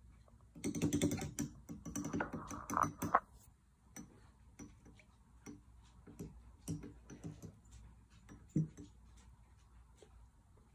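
Glass Erlenmeyer flask being swirled by hand, juice swishing inside with a rapid run of small glass clicks and taps between about one and three seconds in, then scattered single ticks.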